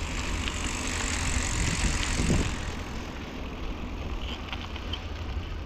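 Steady rushing noise over a low rumble: wind on the camera microphone while a mountain bike rides over dirt.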